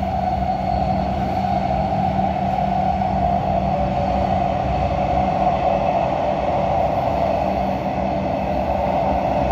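Warsaw Metro train running through a tunnel, heard from inside the car: a steady rolling rumble with a constant mid-pitched drone and a lower steady hum.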